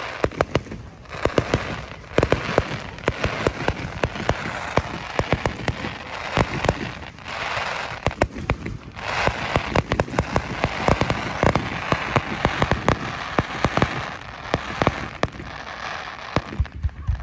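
Fireworks going off: a rapid, irregular string of sharp bangs and pops over a continuous crackling hiss, with brief lulls about a second in and near the middle.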